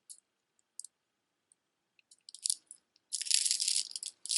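Costume and stone jewelry being handled: scattered small clicks of beads and stones knocking together, then a dense, crunchy rustle and clatter of jewelry being moved about three seconds in.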